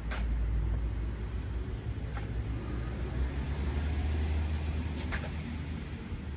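Low, steady rumble of a nearby motor vehicle, its pitch stepping up slightly about three seconds in, with a few sharp taps from footsteps on the concrete path.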